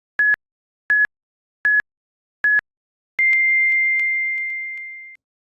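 Electronic countdown beeps: four short, evenly spaced beeps followed by one longer, slightly higher beep that fades out, like a race-start countdown.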